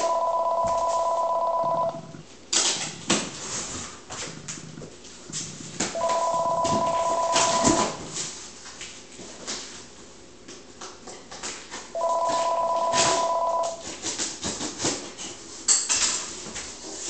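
A telephone ringing three times, each ring a warbling two-tone trill lasting about two seconds, repeating every six seconds. Scattered rustling and clicking handling noises fill the gaps between rings.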